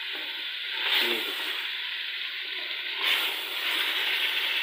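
Chicken pieces sizzling as they are browned in oil in a hot pot, stirred with a wooden spoon: a steady frying hiss.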